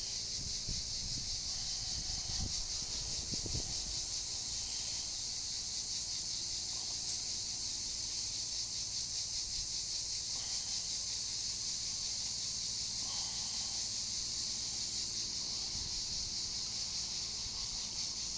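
Cicadas chorusing: a steady, high-pitched buzz with a fine, rapid pulse that never breaks.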